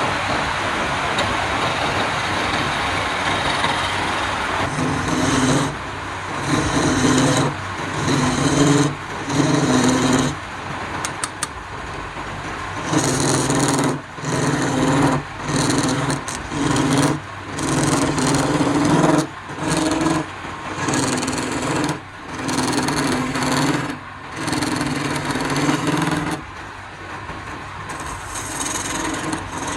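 Wood lathe running with a turning tool cutting the spinning wood. A steady run gives way, about five seconds in, to repeated cuts of about a second each with short breaks between.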